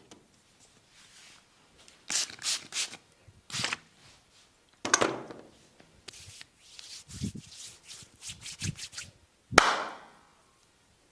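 Hands of a massage therapist rubbing and pressing on bare skin in a series of short strokes, with a few dull thuds, then one sharp smack about two seconds before the end, the loudest sound.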